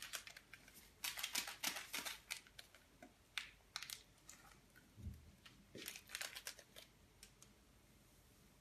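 A small packet of dry yeast being crinkled and torn open by hand, in three bursts of crackling, with a dull thump about five seconds in.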